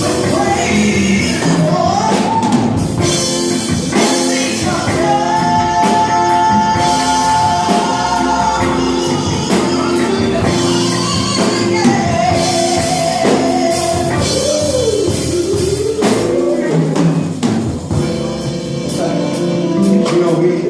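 Gospel worship music: a singer holds long sung notes over a band with a drum kit.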